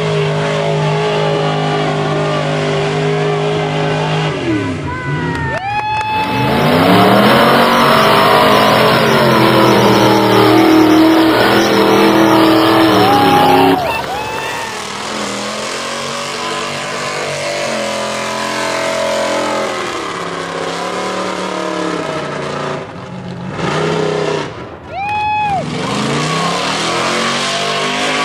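Mud-drag jeeps and pickup trucks revving hard as they race through a mud pit, engine pitch rising and falling with each run. Loudest for about eight seconds in the middle, with brief drops where one run gives way to the next.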